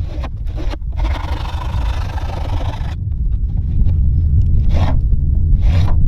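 Repeated scraping strokes over a steady low rumble. There are a few quick strokes, then one long scrape of about two seconds, then slower strokes about once a second.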